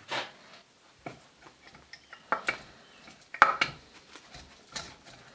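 Irregular metallic clinks and knocks as the triplex plunger pump's crankshaft and end roller bearing are worked out of the pump housing by hand, the loudest about three and a half seconds in.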